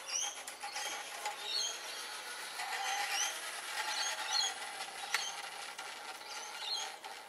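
1:24 scale model trams running along an outdoor garden track: a steady mechanical rattle of small metal wheels on rail, with a sharp click about five seconds in.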